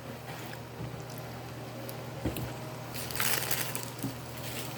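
Quiet eating and food-handling sounds: a few small clicks and a brief crinkly rustle about three seconds in, over a steady low hum.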